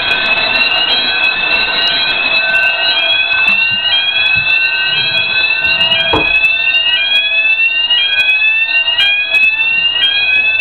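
Roshni electronic fire alarm sounder and alarm bell going off together during a system test, pretty damn loud. The sounder gives a rising sweep about once a second over a steady ringing, with a single thump about six seconds in.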